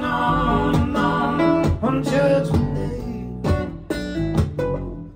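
Acoustic guitar strumming over electric bass, with voices holding sung notes above them. The playing drops away briefly near the end.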